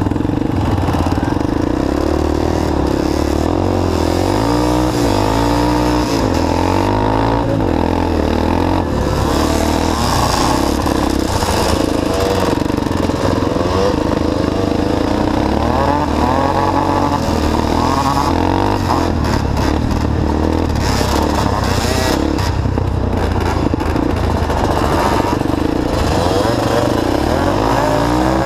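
Quad bike engines running hard, heard from on board one of the quads, the near engine revving up and down over and over as it races, with other quads' engines close around it.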